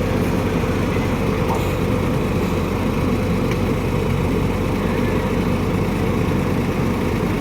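Excavator's diesel engine running steadily at an even pitch.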